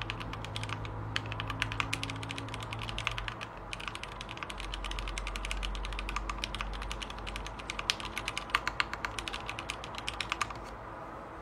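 Rapid, irregular clicking in quick runs, with a short lull about four seconds in, stopping near the end, over a low steady hum.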